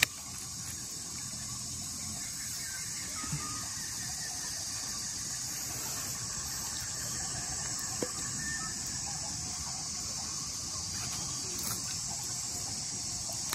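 Steady, high-pitched chorus of crickets and other insects, even and unbroken, with a single small click about eight seconds in.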